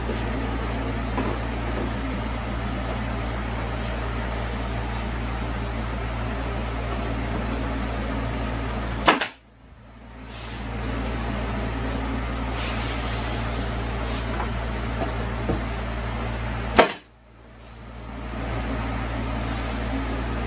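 Steady low mechanical hum of a running machine, such as a fan. It is broken twice by a sharp click, after which the sound drops out and fades back in over about a second.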